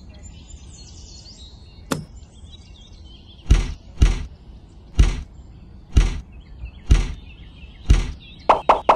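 Toy strawberries dropped one at a time into a small plastic toy trailer bed: six thuds about a second apart, after a single sharp click a couple of seconds in. Faint birdsong runs underneath.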